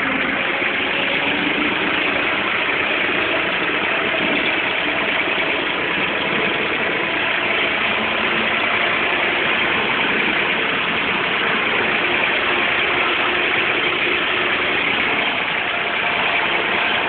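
IMT 542 DeLuxe tractor's diesel engine running steadily under load while it drives a rotary mower cutting grass.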